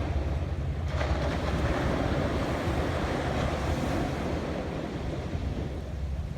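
Atlantic surf breaking on the beach: a wave washes in about a second in and eases off toward the end. Wind rumbles on the microphone throughout.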